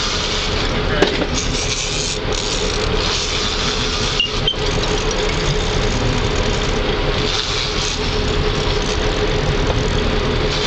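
Charter fishing boat's engine running at idle, a steady hum and rumble under a rush of wind and sea, with one sharp knock about a second in.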